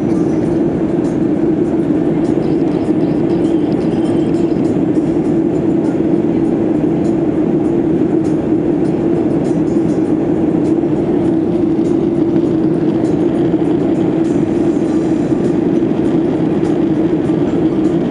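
Steady cabin drone of a Boeing 737-800 airliner in flight, its CFM56-7B jet engines and the airflow making an even rumble with a strong low hum.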